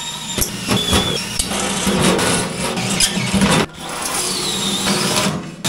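Cordless drill running a hole saw through the lid of an electrical enclosure box, cutting the rounded corners of a panel cutout. It stops briefly about two-thirds of the way through, then cuts on.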